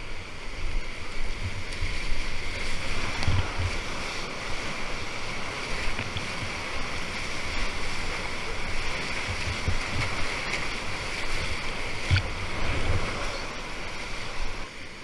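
Whitewater rapids rushing around a kayak, with water splashing against the camera and irregular low thumps, strongest about three seconds in and again near twelve seconds.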